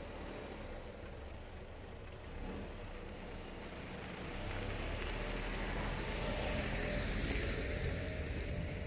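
A Mitsubishi ute drives past on a gravel track, its engine and tyres on the gravel growing louder and peaking as it passes close in the second half. A Toyota LandCruiser follows, approaching near the end.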